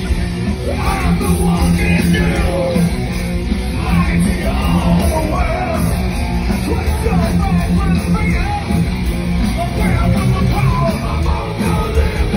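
Loud live heavy rock music over a stage PA, with voices yelling, heard from inside a packed concert crowd.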